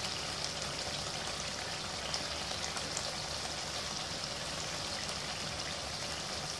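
Mutton karahi gravy sizzling softly in the pan: a steady, even hiss of oil and gravy cooking, with a faint pop now and then.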